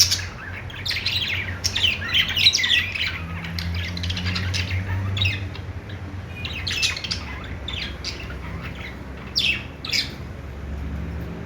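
Budgies chirping and squawking in quick, overlapping bursts, busiest in the first few seconds and again with a couple of sharp calls near the end. A low steady hum runs underneath.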